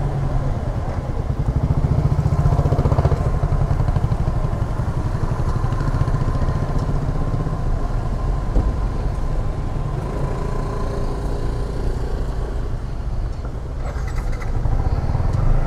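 Yamaha MT-15's single-cylinder engine running steadily at low revs.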